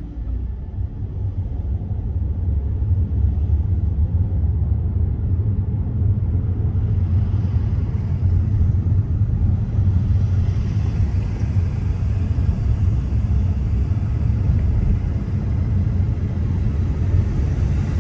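Car driving on city roads: a steady low rumble of road and engine noise that grows louder over the first few seconds as the car picks up speed, with a rising hiss of tyre and wind noise joining from about seven seconds in.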